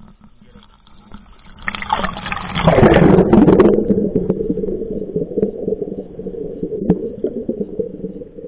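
Spring water splashing against a microphone as it is plunged into a stone fountain trough, starting about two seconds in. A second or so later the sound cuts to a muffled underwater gurgling and bubbling that lasts the rest of the time.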